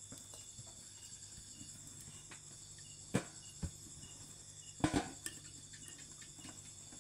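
Insects chirring steadily in a rhythmic pattern, with a few knocks from the dough work on a steel plate: one about three seconds in, and a close pair near five seconds.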